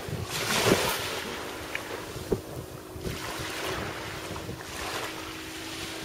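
Surf washing in on the shore, with wind buffeting the microphone.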